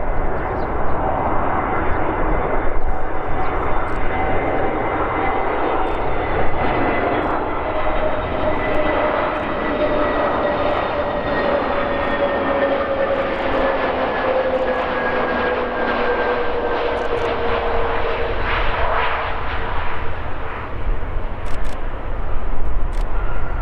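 Airbus A320neo's CFM LEAP-1A turbofans on final approach, a steady jet rumble with whining tones that slowly fall in pitch as the airliner flies past. The noise swells again near the end as it touches down on the runway.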